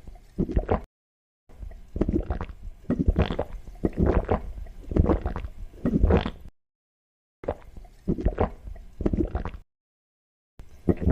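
Water gurgling and squishing in repeated, uneven strokes from a working miniature hand pump, in short stretches broken by sudden cuts to silence.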